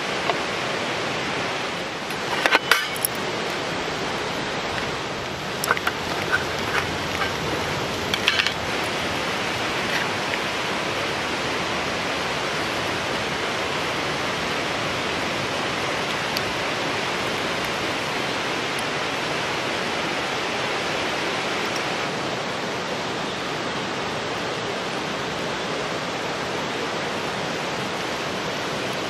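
Steady rush of running water, like a nearby stream. Between about two and nine seconds in come a few light clinks and taps of utensils.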